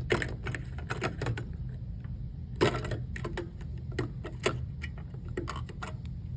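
Irregular clicks and clatters of AA batteries being handled against a plastic battery holder in an electronic door lock, with one louder knock a little before halfway. A steady low hum runs underneath.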